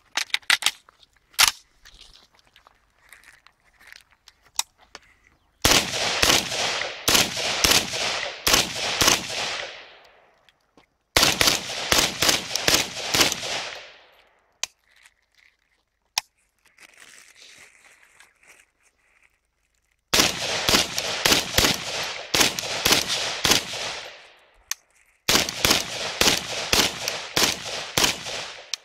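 Sako RK95 civilian model in 7.62×39 firing semi-automatic: four strings of rapid shots, about two to three a second, each string trailing off after its last shot. In the first few seconds there are scattered clicks of the rifle being handled and loaded.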